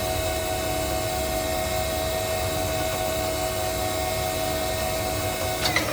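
Nakamura-Tome TMC-15 CNC lathe running: a steady mechanical hum with a clear high tone over a low rumble. A few sharp clicks near the end.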